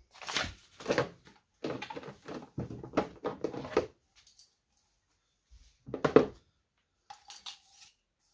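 Hard plastic crate panels and parts being pulled out of a cardboard box, rustling and clattering for about four seconds. A single loud knock or rattle comes about six seconds in, then faint handling noises.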